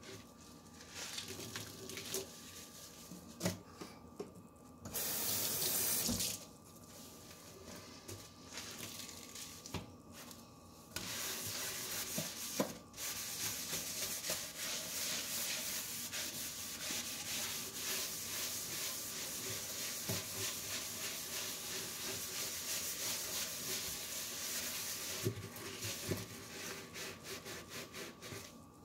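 A sponge scrubbing a sudsy stainless-steel sink, making wet swishing strokes with short pauses between them. About five seconds in there is a louder hiss lasting about a second. From about eleven seconds the scrubbing gets denser and steadier, then breaks into separate strokes again near the end.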